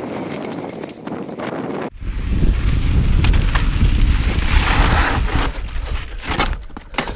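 Mountain bike riding a dry dirt singletrack, heard through wind buffeting the camera microphone; the wind rumble gets much louder about two seconds in. Near the end the bike clatters with several sharp knocks over rocks.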